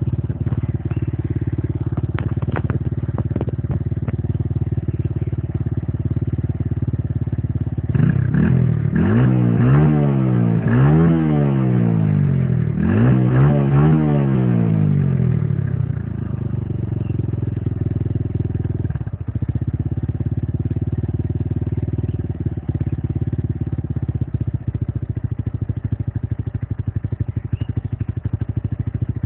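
Zealsun 150-19 motorcycle's exhaust idling steadily. About eight seconds in, the throttle is blipped several times, the revs rising and falling, before the engine settles back to idle.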